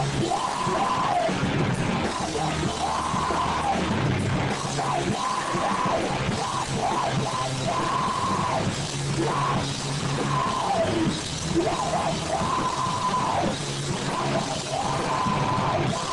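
A live heavy rock band playing: drum kit and distorted electric guitar, with a melodic phrase that repeats over and over.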